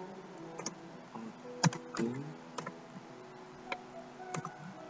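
Computer keyboard typing: a handful of separate, irregularly spaced key clicks.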